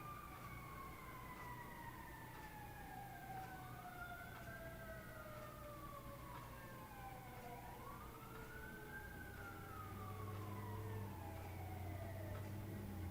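Faint emergency-vehicle siren wailing, its pitch sweeping slowly down and rising and falling again twice. A low hum comes in during the last few seconds.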